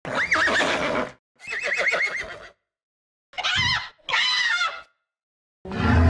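Horse whinny sound effects played one after another: five short neighs with a shaking, wavering pitch, each cut off sharply and separated by brief dead silence. The last one is longer and lower.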